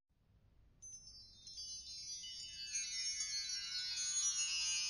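Closing music of shimmering chime-like tones: a dense cluster of high ringing notes enters about a second in and spreads down in pitch, growing louder, over a faint low hum.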